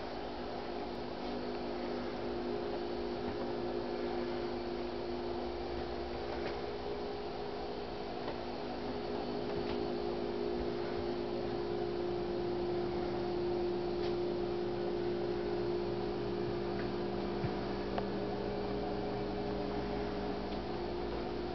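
Steady electrical hum, a chord of several low tones that holds unchanged throughout, with a few faint clicks and knocks scattered over it.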